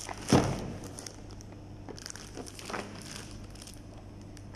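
Plastic courier mailer bag crinkling and rustling as it is handled and turned over, with one louder thump about a third of a second in and a few short rustles later on.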